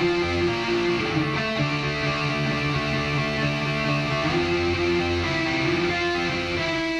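Schecter Demon electric guitar being played: sustained chords and notes, each held for about a second before the next.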